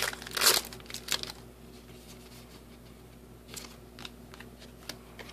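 Foil trading-card booster wrappers and cards crinkling and rustling as hands handle them, with a few sharp crinkles in the first second or so, then softer rustles.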